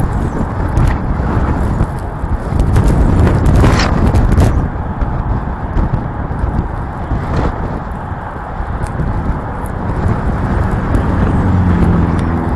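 Strong wind buffeting the microphone, a dense low rumble that rises and falls in gusts, with brief crackles about four seconds in and again past seven seconds.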